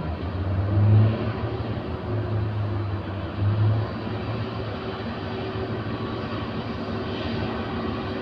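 Steady low rumble and hum of a large container ship's engines as it moves slowly in to berth. Gusts of wind buffet the microphone about a second in and again around three and a half seconds.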